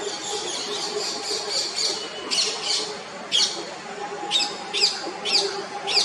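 Birds calling harshly at a nest-site squabble between common mynas and black-rumped flameback woodpeckers: a fast, dense chattering at first, then from about two seconds in loud, sharp squawks that fall in pitch, repeated every half second or so.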